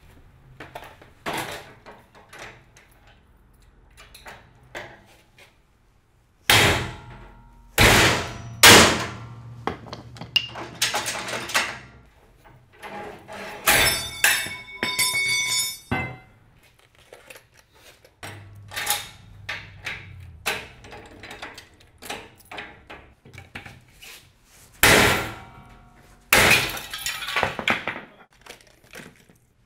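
Steel hand tools banging and prying at a trailer coupler lock on a steel trailer coupler: a run of separate metal knocks and clanks, loudest a quarter of the way in and again near the end, with a ringing metallic clink about halfway through.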